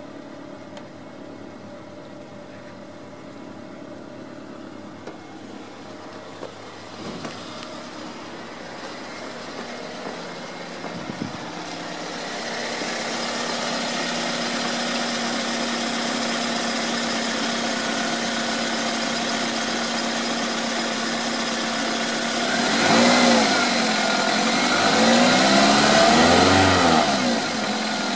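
Toyota Corolla Verso's 1.8-litre VVT-i 16-valve four-cylinder petrol engine idling steadily, growing louder about halfway through. Near the end it is revved twice, the pitch rising and falling each time.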